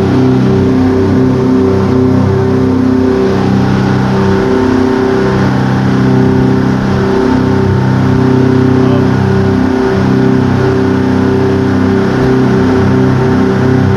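Tour boat's engine running steadily under way, a loud, even low drone, with the hiss of water churning in the wake.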